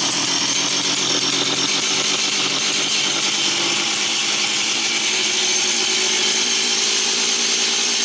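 Stihl MS260 chainsaw's two-stroke single-cylinder engine running steadily at idle, now starting and running after its no-start fault was worked on.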